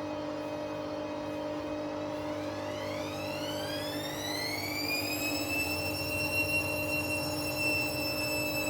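Washing machine spinning: under a steady hum, the motor's whine rises in pitch as the drum speeds up, then levels off at a steady high whine at full spin speed.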